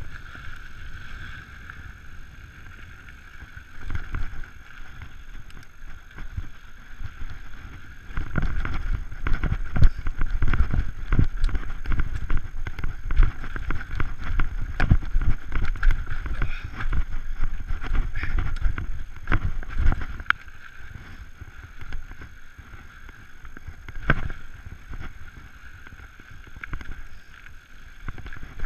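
Giant Trance 29 full-suspension mountain bike descending a dirt and rock trail: wind rumble on the camera microphone and the clatter and knocks of the bike over rocks, heaviest from about eight seconds in for some twelve seconds. A steady high buzz runs under it.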